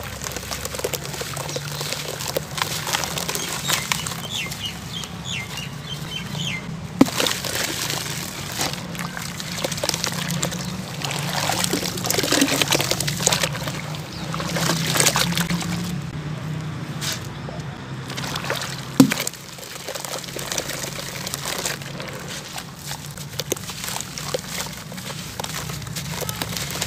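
Hands crumbling and squeezing gritty sand-cement chunks in a basin of foamy water: steady sloshing, dripping and splashing with fine crackling grit. Two sharp knocks stand out, one about seven seconds in and one near nineteen seconds.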